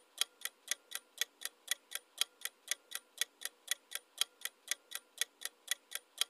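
Quiz countdown timer's clock-tick sound effect: short, sharp, evenly spaced ticks, about four a second.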